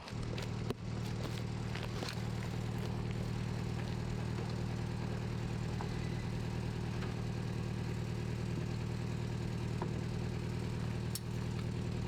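A vehicle engine idling steadily close by, with a few sharp clicks over it.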